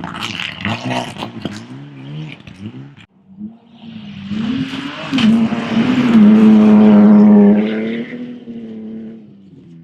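Classic rally cars at full throttle: one car's engine revs and changes pitch as it moves away, then a second car approaches and passes at speed. The second car's engine holds a steady high pitch and is loudest about six to seven and a half seconds in, then fades.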